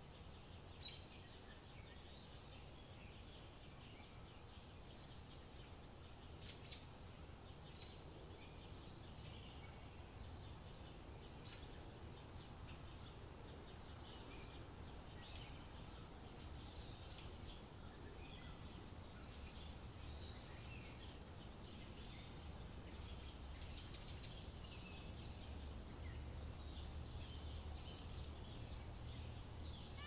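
Faint outdoor ambience: small birds chirping in short, scattered calls over a low steady rumble that grows slightly louder toward the end.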